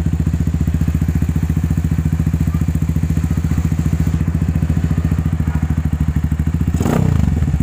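Viar Cross X 200 ES trail bike's single-cylinder four-stroke engine idling steadily through an aftermarket GP7 Predator muffler, an even, regular exhaust beat. A brief rush of noise comes near the end.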